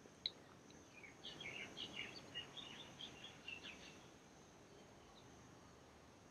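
Faint bird chirping: a quick run of short high chirps from about one to four seconds in, over a quiet background with a faint steady high tone. A single sharp click just after the start.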